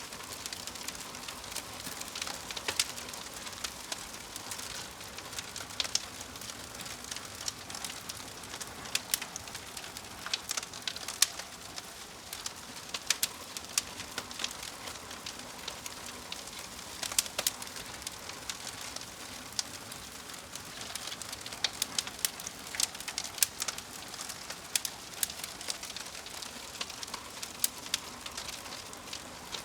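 Wood fire crackling: a steady hiss with frequent sharp, irregular pops and snaps.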